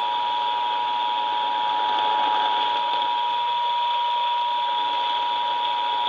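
Emergency Alert System two-tone attention signal (853 and 960 Hz sounding together) over a clock radio's AM speaker, with a hiss of static beneath it. It is the steady alert tone that precedes a severe thunderstorm warning message.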